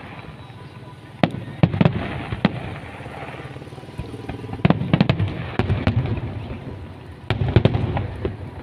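Fireworks bursting in quick clusters of sharp bangs and crackles, three volleys over a low rumbling background.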